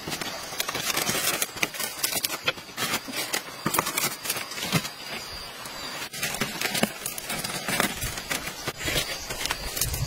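Palm leaves rustling and crackling as they are handled and pressed onto a bamboo hut frame, in irregular sharp crackles.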